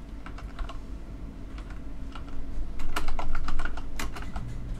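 Typing on a computer keyboard: irregular runs of quick key clicks, faint at first, then a denser, louder burst of keystrokes about three to four seconds in.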